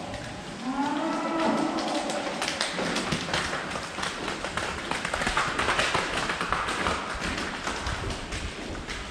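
Dairy cow mooing, one long call of about two seconds starting half a second in, followed by a dense run of clicking and tapping.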